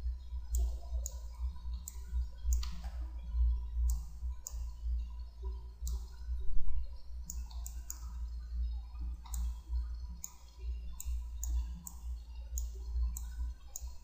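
Computer mouse buttons clicking at an irregular pace, about one or two clicks a second, over a steady low hum.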